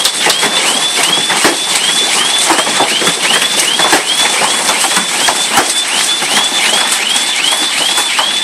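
Car alarm siren sounding a fast repeating rising whoop, about three a second, set off by the hail, over a dense clatter of hailstones striking cars and the ground.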